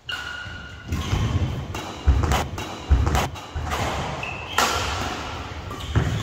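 Badminton doubles rally on an indoor court: rackets strike the shuttlecock in a series of sharp hits, and players' feet thump on the court floor. Brief shoe squeaks come through, and the hall gives everything an echo.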